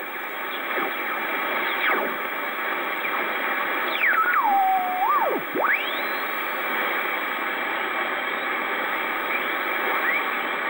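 Yaesu FRG-8800 shortwave receiver in LSB being tuned across the 80 m amateur band, its speaker giving steady band noise. Whistling tones slide down and then back up about four to six seconds in, as the dial sweeps past signals.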